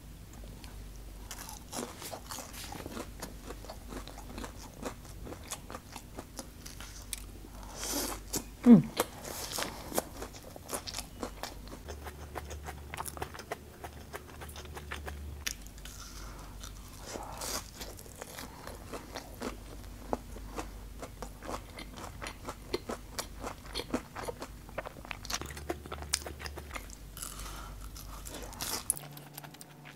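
Close-miked eating of barbecue and fried meat skewers: biting, crunching and chewing, with many small crunches throughout. One louder, sharper sound comes about nine seconds in.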